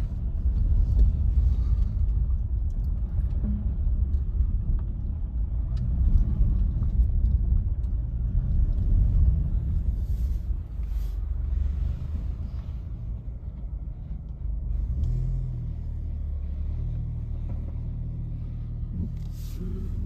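Steady low rumble of a moving vehicle, uneven in level, with a few light clicks or rattles about halfway through and near the end.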